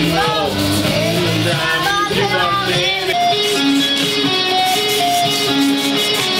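Background music with held notes and a moving melody.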